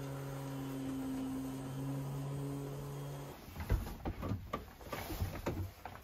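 A steady low hum for the first half, which stops abruptly about three seconds in. It is followed by irregular knocks, thumps and rustling as someone climbs down through a yacht's companionway hatch into the small cabin.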